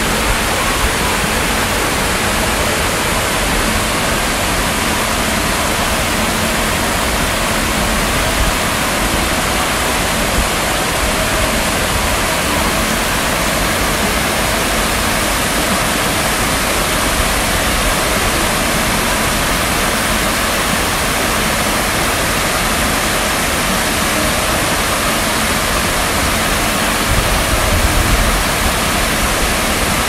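Water cascading over the tiers of a rock-garden waterfall and splashing into a pond: a steady, even rush of falling water.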